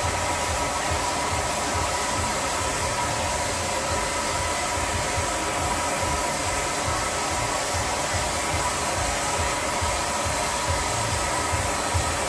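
HVLP spray-tan machine running steadily, its turbine blowing air with a faint steady whine through the hose and handheld spray gun as tanning solution is sprayed.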